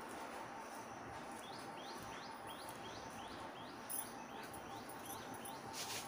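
A bird calling, repeating a short rising chirp about three times a second for several seconds, over a faint steady background hiss.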